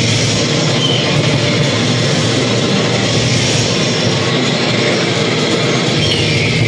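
Loud, steady film soundtrack from a 5D cinema's speakers: the rumble and clatter of a ride running along a track.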